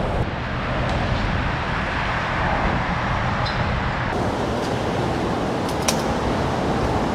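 Steady rushing workshop background noise, with a few light clicks and one sharper click about six seconds in.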